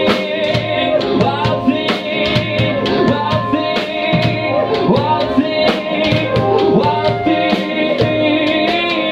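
Live rock band playing: electric guitar and a Pearl drum kit keeping a steady beat, with a man singing into a microphone.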